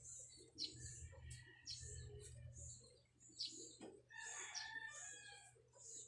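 A rooster crowing faintly in the background about four seconds in, over soft intermittent rustling.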